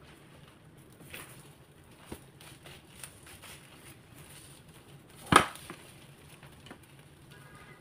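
A spatula scraping and folding an egg omelette in a nonstick frying pan, with scattered light taps and a faint crackle from the pan. One sharp knock of the spatula against the pan about five seconds in.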